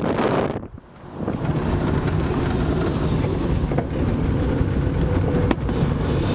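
Road, tyre and wind noise from a moving electric-converted classic Volkswagen Beetle, with no engine sound. The noise drops out briefly about a second in, then runs steady.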